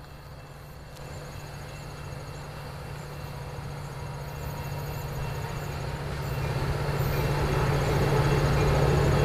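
Metra diesel-hauled commuter train approaching, its locomotive's low engine hum and rumble growing steadily louder as it nears.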